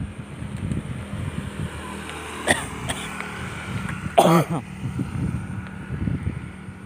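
Irregular low rumble of wind and handling on a phone microphone while walking over grass. A person gives a short cough about four seconds in.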